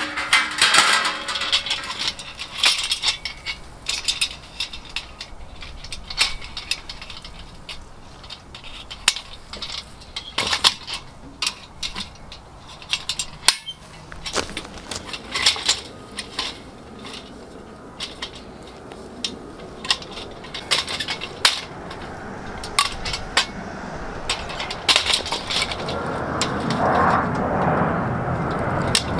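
Coleman folding fire pit being unfolded by hand: its metal frame and mesh panels clink and clank in many short, irregular knocks, with a rustling, scraping noise of handling building near the end.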